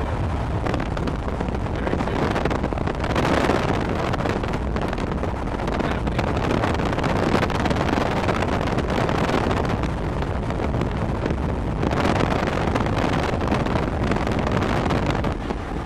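Wind rushing and buffeting over the microphone with the rumble of a vehicle driving, steady throughout with louder gusts a few seconds in and again near the end.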